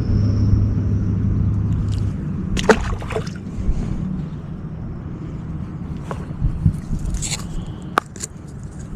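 Water sloshing and gurgling, with a low steady hum that stops about two seconds in, and a few sharp clicks and rustles.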